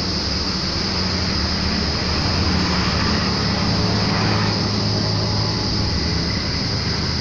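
Diesel truck engine idling: a steady low rumble with a constant hum, swelling slightly around the middle.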